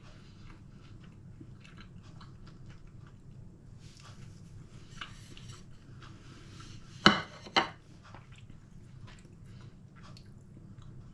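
Soft chewing of flaky puff pastry with small clicks and rustles, then a plate knocks twice on the kitchen worktop about seven seconds in as it is set down.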